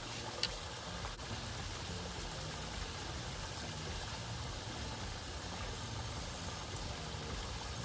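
Creek water running steadily, trickling and splashing where it spills over a concrete wall into the pool, with one short click about half a second in.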